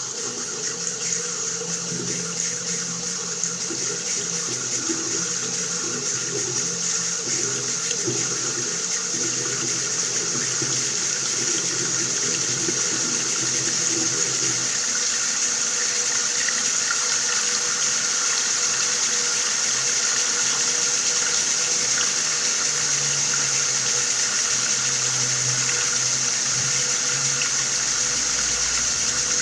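Water running steadily from a tap, an even, continuous splashing hiss, with a low fluttering rumble under it in the first half.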